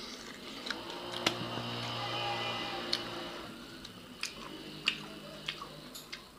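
Close eating sounds of rice and pork with bamboo shoots eaten by hand: short sharp wet clicks of chewing and lip smacking, with fingers squishing rice on the plates. A low steady hum joins about a second in and fades after a couple of seconds.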